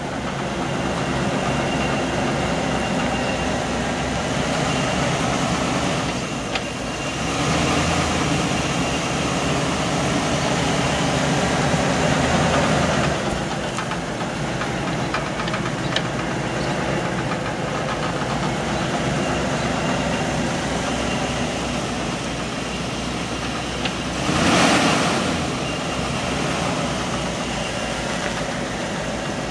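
Ford F250 pickup engine idling steadily. It grows louder for several seconds early on, and a brief louder whoosh comes near the end.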